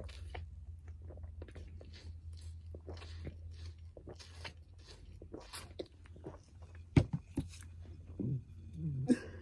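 Repeated gulping swallows, close up, while drinking from a glass bottle of fizzy drink, over a steady low hum; two sharp clicks about seven seconds in.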